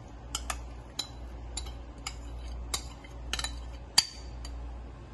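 A spatula tapping and scraping against a bowl and a non-stick frying pan as soft raw brain is scraped into the pan: a dozen or so sharp, irregular clicks, the loudest about four seconds in, over a steady low hum.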